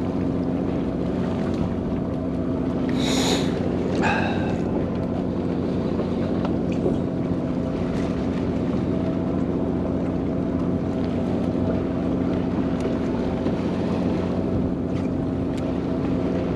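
Fishing boat's engine humming steadily on board, a constant low drone with a little wind on the microphone. About three seconds in there is a brief hiss, followed by a short higher-pitched sound.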